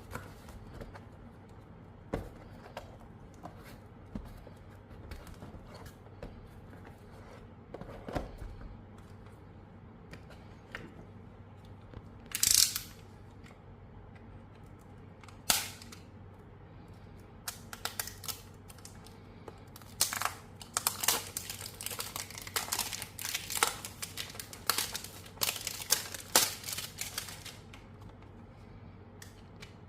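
Packaging being handled and opened: scattered clicks and taps, a couple of short sharp rustles or tears, then a dense run of crinkling and scratching near the end.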